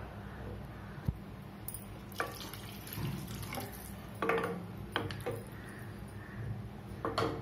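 Wooden spatula stirring a thin, watery tomato gravy in a stainless steel kadai: the liquid sloshes, with several short scrapes and knocks of the spatula against the pan.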